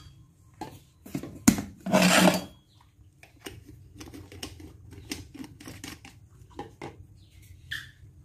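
A metal spoon clinking and scraping against a tin of powdered milk formula, with one sharp clink about a second and a half in, followed by small taps and clicks as a plastic baby bottle is handled and its teat cap screwed on. A brief high squeak near the end.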